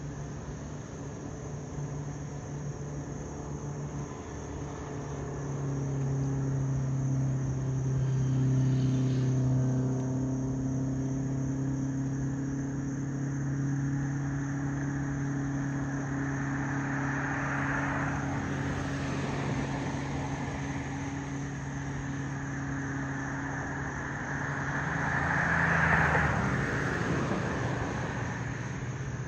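A ski boat's engine running with a low, steady drone as it tows a water-skier at speed, with a broad hiss that swells up twice in the second half.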